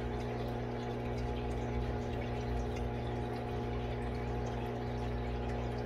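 A steady electrical hum, several even tones held unchanged, over a constant low wash like running water, such as a water pump running.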